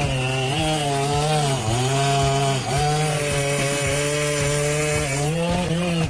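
Two-stroke chainsaw running at high revs while cutting wood, its engine pitch dipping a few times as the chain bogs in the cut and then recovering.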